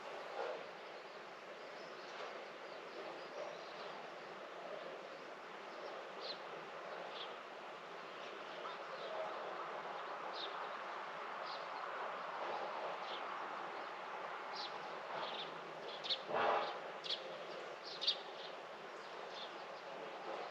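Outdoor garden ambience: a steady background hum with short, high bird chirps scattered throughout. A brief louder knock or rustle comes about sixteen seconds in, and a sharp click about two seconds later.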